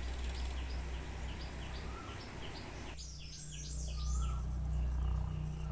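Small birds chirping, many short high calls repeated in quick succession over a low steady hum; the background hiss drops abruptly about halfway through.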